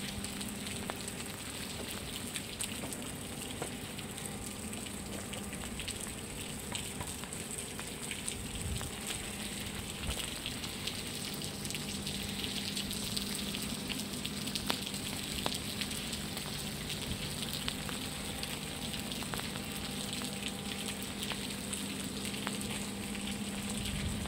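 Steady rain falling on the truck's steel flatbed deck and the wet ground, a continuous crackling hiss of many small drop ticks, with a low steady hum underneath.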